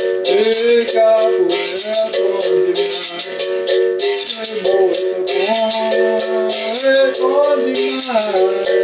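Berimbau struck with its stick and accompanied by the caxixi basket rattle in a steady rhythm, under a man singing a capoeira song.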